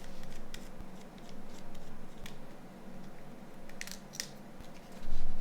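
A few light, scattered clicks and taps of small plastic and metal phone parts being handled during disassembly, the loudest near the end, over a faint steady low hum.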